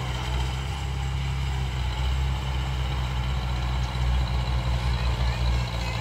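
Crawler bulldozer's diesel engine running steadily as it pushes soil, a continuous low drone.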